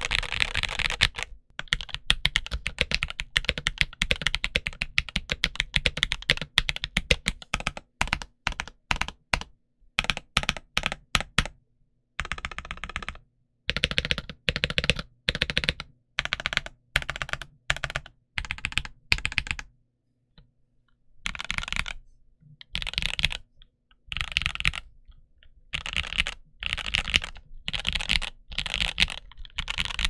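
Typing on a Drop CSTM65 mechanical keyboard with Gateron Milky Yellow Pro linear switches and Cherry DS ABS keycaps. Fast continuous keystrokes give way about halfway through to slower, separate key presses in short clusters, then a brief pause, then quick bursts of typing again.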